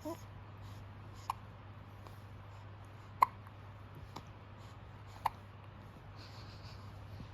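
A baby hiccuping: four short, sharp hiccups about one to two seconds apart, the third the loudest.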